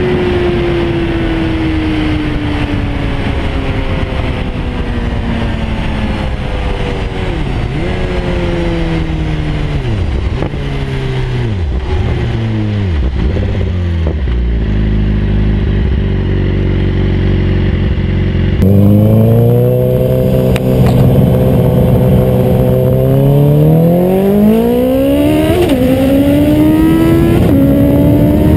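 Onboard sound of a BMW S1000RR's inline-four engine with wind rush, its note falling steadily as the bike slows from high speed, with several quick rises in pitch as it shifts down, then settling to a steady low note. About two-thirds through it gives way to a Honda CB1000R's inline-four. That engine runs steadily, then revs up with a gear change near the end.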